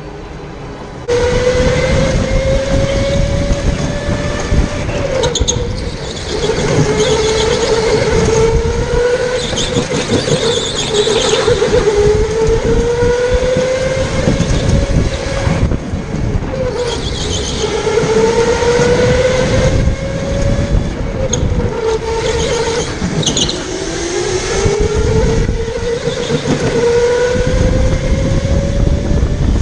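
Electric indoor go-kart motor whining under full power. Its pitch climbs over a few seconds along each straight and drops back sharply into each corner, repeated several times. Underneath is a heavy rumble from the kart and wind on the camera, with short tyre squeals in the corners.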